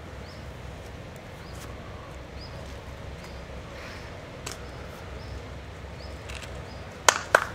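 Quiet outdoor ambience with a low rumble and a few faint high chirps. About seven seconds in, an audience starts clapping.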